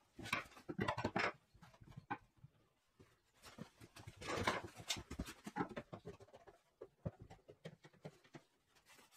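Metal bar clamps being handled and tightened on a plywood cabinet frame: irregular clatter, clicks and scraping of the clamps against the wood. There are two busier bursts, one at the start and one near the middle.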